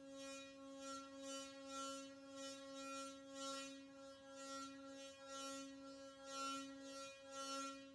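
Stainless steel pot filled with water, sung like a singing bowl by rubbing its metal handle: a steady hum with ringing overtones, with the swish of the hand strokes about twice a second.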